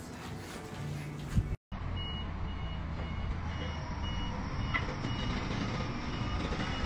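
A vehicle's reversing beeper sounds about twice a second, short high beeps over a low engine rumble, as the tyre rolls back slowly onto a smartphone. It starts about a second and a half in, after a sudden cut.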